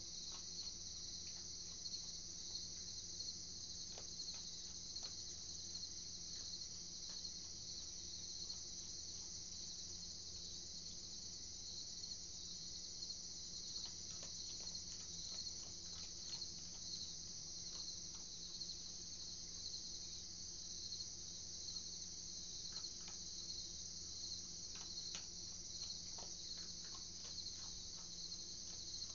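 A steady chorus of crickets trilling, with scattered faint clicks and crunches as an opossum chews dry food pellets.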